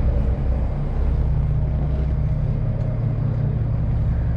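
Boat engine idling with a steady low hum while the vessel is held at the dock.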